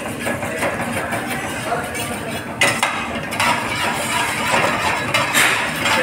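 Steel ladle stirring and scraping dal in a metal pan, with clinks of the ladle against the pan, a sharp one about two and a half seconds in. A steady hiss runs underneath.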